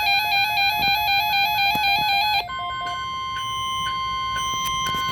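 NOAA Weather Radio emergency alert: a fast electronic warble alternating between two pitches for about two and a half seconds, then the steady 1050 Hz weather radio warning tone, with a higher beep switching on and off over it.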